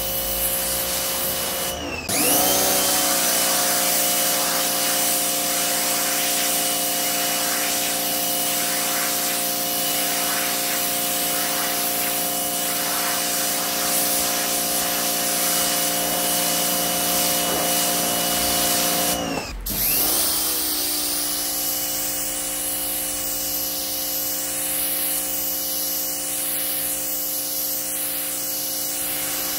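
Parkside PHD 170 D2 electric pressure washer running, its motor and pump giving a steady whine under the hiss of the water jet hitting paving and concrete. Twice it cuts out for a moment and winds back up to speed.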